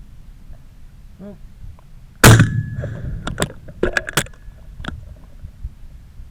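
A single shotgun shot at a clay pigeon about two seconds in, recorded by a camera mounted on the gun, followed by a run of sharp clicks and clacks over the next couple of seconds.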